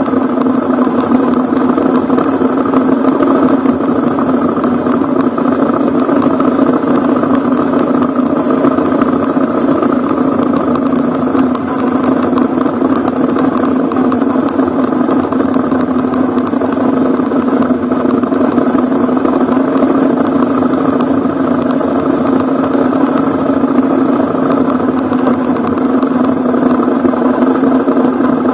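Ducati Hypermotard's V-twin engine running steadily as the motorcycle rides along a dirt track. The engine note holds even, with no marked revving up or down.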